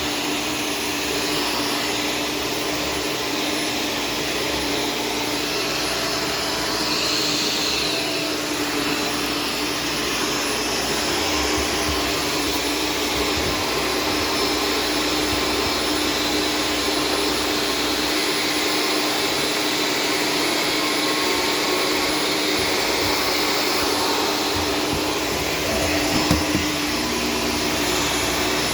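Corded Shark Stratos vacuum cleaner running steadily as it vacuums the floor: an even whooshing motor noise with a steady hum underneath. A few brief knocks come near the end.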